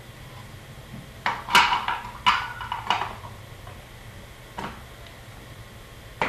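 Sharp clacks and knocks of hard objects being handled. Several come close together from about one to three seconds in, with a brief ringing tone after some of them, then one knock in the middle and another right at the end.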